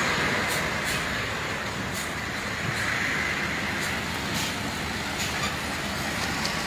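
Steady road traffic noise from trucks on a highway, with a few faint clicks.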